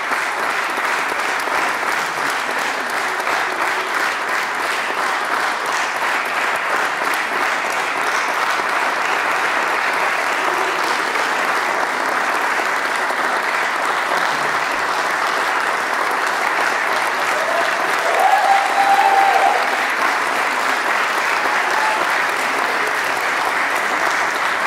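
Audience applauding steadily after a flute ensemble performance. About three quarters of the way through, one short held call or whistle rises slightly and stands out above the clapping for about a second.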